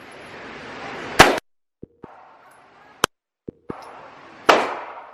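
Gunshots at a shooting range: a loud shot about a second in, a short sharp crack near three seconds, and another loud shot with a ringing tail at about four and a half seconds, broken up by sudden drop-outs to silence.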